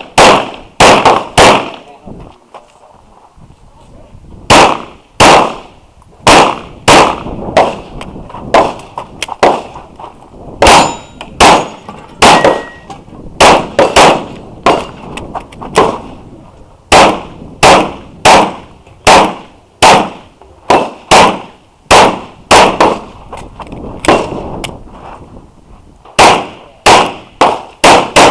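9mm Glock 34 pistol fired in rapid pairs and strings of shots, dozens in all, with a pause of about two seconds just after the start, during a practical-shooting stage run. A short metallic ringing is heard among the shots about eleven and twelve seconds in.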